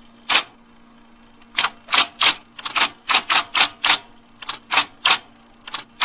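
Manual typewriter being typed on: a single key strike, then a run of uneven keystrokes at about three a second, each a sharp clack of the typebar hitting the paper.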